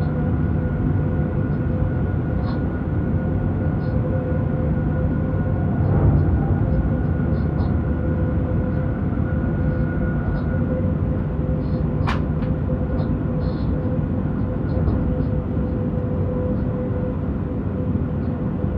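Cab noise of a BR 186 (Bombardier TRAXX) electric locomotive running at speed: a steady low rumble of wheels on rail with a steady whine from the traction equipment. A brief louder knock comes about six seconds in, and a short rising chirp a little past halfway.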